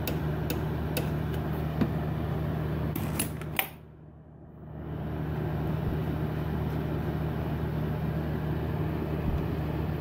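A steady mechanical hum, with light metallic clicks and taps in the first few seconds as a loosened bolt on the turbocharger's line fitting is turned by hand. The hum dips away for about a second near four seconds in, then returns.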